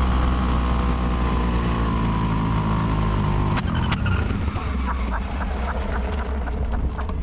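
A quad's engine running on a softening 3D-printed carbon-fibre piston, its pitch slowly falling. About three and a half seconds in come two sharp knocks and the engine note stops as the worn-out piston gives up, leaving a hiss with light ticking.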